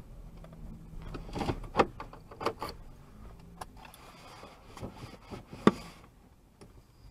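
Knocks and clicks inside a car cabin as the car comes to a stop, over a low engine hum that fades after a second or so. The sharpest knocks come a little under two seconds in and again near the end.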